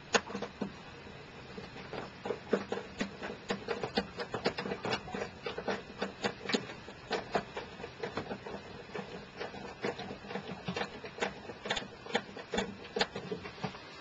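Screw being driven by hand into a plastic cover over a wiring terminal block: a steady run of irregular clicks, a few a second, with a sharper click right at the start.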